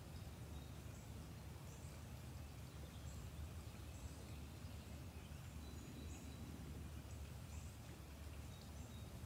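Faint outdoor ambience: short, high bird chirps now and then over a steady low rumble.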